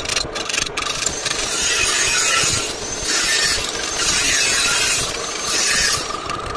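Metal lathe turning a twist drill in its four-jaw chuck while a tool bit cuts at the drill's tip. A loud, harsh metal-on-metal scraping hiss swells and eases several times as the cut comes and goes.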